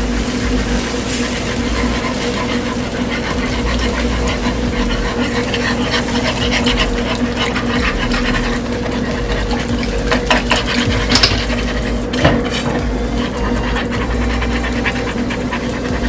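Wire whisk scraping and swishing rhythmically in a skillet, beating vegetable stock into a flour-and-oil roux to work out the lumps, over a steady low hum.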